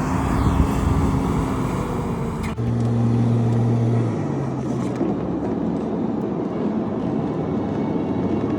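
A road vehicle driving, with a steady engine hum over road noise. The sound changes abruptly about two and a half seconds in, and the engine note steps down in pitch a little later.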